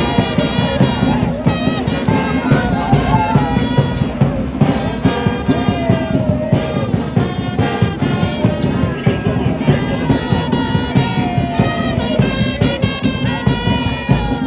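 Loud, upbeat brass-led music with a steady driving beat.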